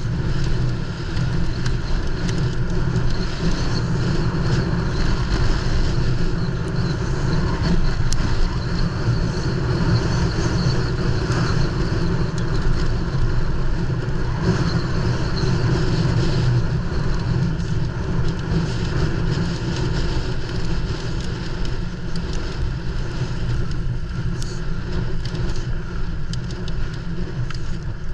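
Steady wind rush and low rumble on a GoPro riding with a mountain bike at speed over rough ground, with small clicks and rattles now and then.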